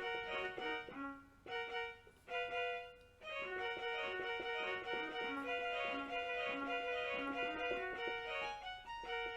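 DEK 610P 61-key electronic keyboard playing a remembered melody of sustained single notes through its built-in speakers, with brief pauses about one, two and three seconds in before it carries on.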